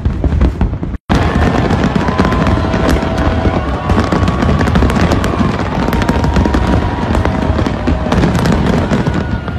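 A fireworks display going off in a dense run of bangs and crackles, with deep booms underneath. The sound cuts out for an instant about a second in. Afterwards the crackling goes on thickly, with a few held high notes sounding over it.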